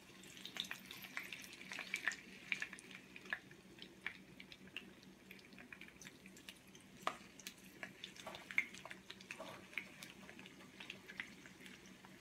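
Zucchini slices shallow-frying in oil in a frying pan: a soft sizzle with scattered crackles and pops, a couple of sharper pops just after the middle.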